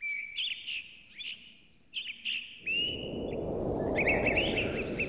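Small birds chirping and tweeting in quick short calls. From about halfway a rush of outdoor background noise swells in and keeps rising.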